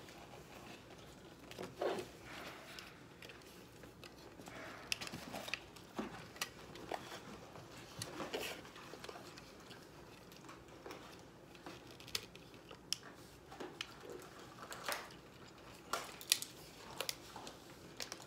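Scattered small clicks, taps and rustles of hands handling plastic toys and packaging, with no steady sound underneath.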